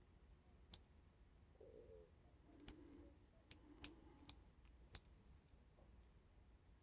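Faint, irregular clicks of a hook pick and tension tool working the pin stack inside an aluminium padlock during single-pin picking, about eight ticks at uneven intervals.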